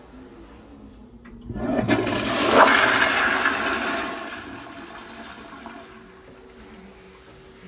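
Toto CT708 commercial flushometer toilet flushing: a sudden loud rush of water about a second and a half in, fading after a couple of seconds into a quieter steady hiss.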